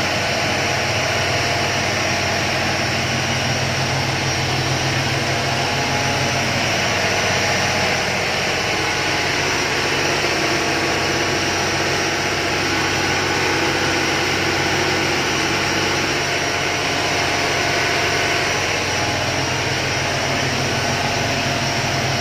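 Inboard engine of a motor boat running steadily under way, a low drone mixed with the hiss of the wake.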